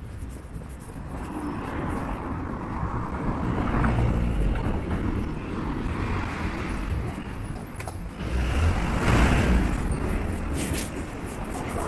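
Road traffic: cars passing by, their engine and tyre noise swelling and fading twice, about four seconds in and again, louder, around nine seconds in.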